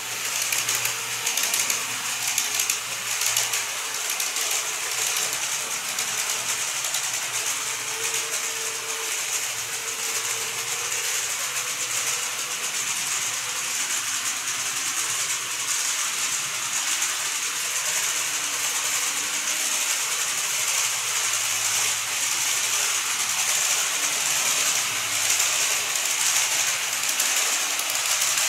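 N-gauge model electric trains running on the layout's track: a steady, dense clatter of small wheels over rail joints with a faint motor whine. It grows a little louder near the end as an E531 series model approaches.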